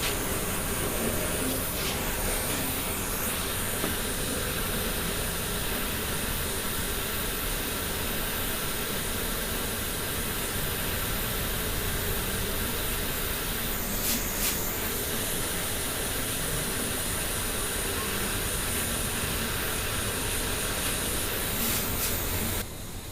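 Torch flame hissing steadily while heating bodywork for tinning before lead filling. It cuts off suddenly near the end.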